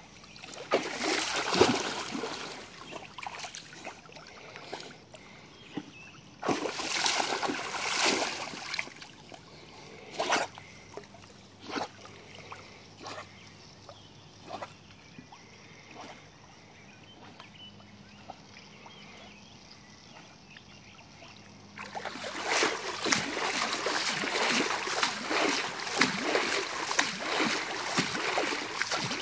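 Pool water splashing and sloshing as a pug paddles through it, in bursts with a few single splashes between. In the last seven seconds there is a denser, continuous rush of splashing.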